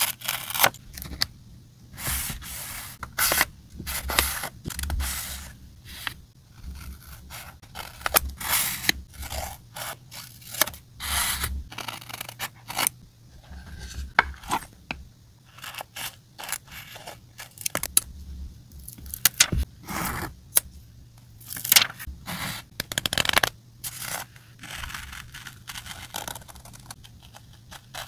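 Close-miked paper-craft sounds: paper and die-cut stickers being handled, slid and rustled in irregular short bursts, with scissors cutting card.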